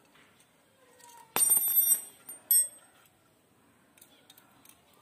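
Small steel hex (Allen) keys clattering with a bright metallic ring, then a single short ringing clink about a second later. Faint ticks follow near the end as the key works at the bolts of the transceiver housing.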